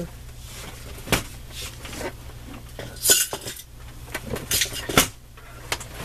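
Craft supplies clattering as a jumbled pile topples, one item knocking the next over: a handful of separate knocks and clinks, with a brief rustling scrape about three seconds in.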